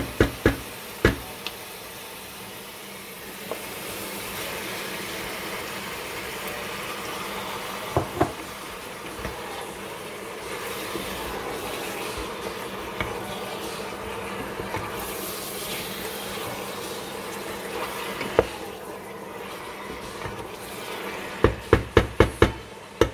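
Chicken pieces sizzling in a stainless steel pot as they are sautéed, stirred with a wooden spoon that knocks against the pot now and then, with a quick run of about six knocks near the end.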